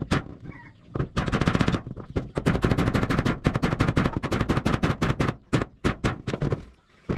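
A power tool driving screws into zinc roofing sheet, hammering in rapid bursts of sharp impacts, about ten a second, for several seconds.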